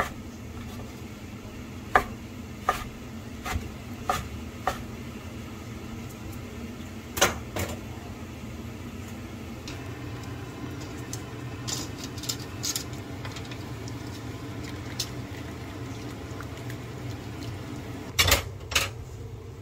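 Kitchen work sounds over a steady low hum: scattered sharp knocks and clinks, first a knife chopping mushrooms on a wooden cutting board, then chopsticks and a metal strainer basket in a pot of boiling water, with two loud knocks near the end.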